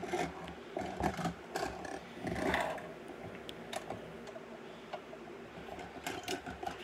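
LEGO plastic pieces clicking and rattling as they are handled and pressed together, in scattered short clicks, with a longer, louder rustle about two and a half seconds in.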